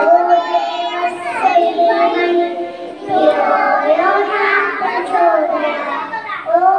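A young child singing a prayer song into a handheld microphone, in long held notes.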